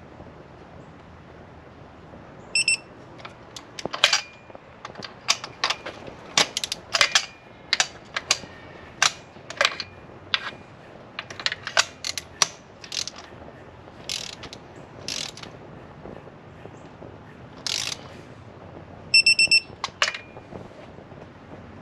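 Hand tools clicking and clinking irregularly while spark plugs are being fitted into the engine, with a short high electronic beep twice, once near the start and once near the end.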